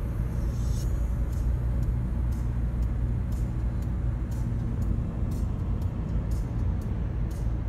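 Road noise inside a moving car: a steady low rumble of engine and tyres on asphalt, with short faint high clicks every so often.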